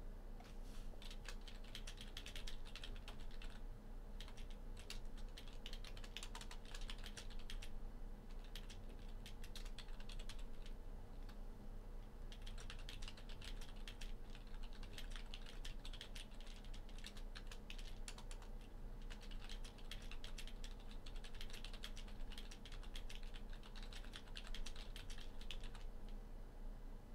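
Typing on a computer keyboard: rapid key clicks in bursts of several seconds, with short pauses between them, over a faint steady hum.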